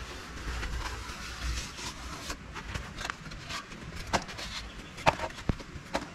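Hands working the cracked edge of a dried mud slab: light scraping, then a few short sharp clicks about a second apart and one dull thump in the second half.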